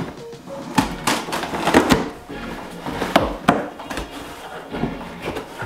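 Cardboard shipping box being opened by hand, its flaps pulled up with a series of sharp, irregular scrapes and knocks, over background music.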